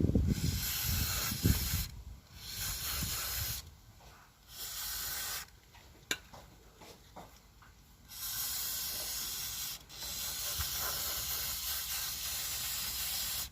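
Aerosol carbon cleaner sprayed from a can in five hissing bursts, the last two long. This is the cleaner being applied to the throttle body and idle speed control valve.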